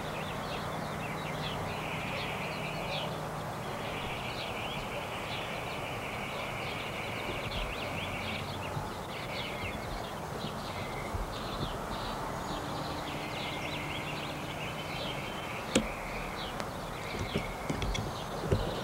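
Small birds chirping and trilling over a steady background hiss, with a sharp click near the end.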